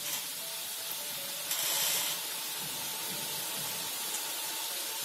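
Gram-flour batter dripping through a perforated ladle into hot oil in a kadai: boondi frying with a steady hiss, briefly louder about a second and a half in.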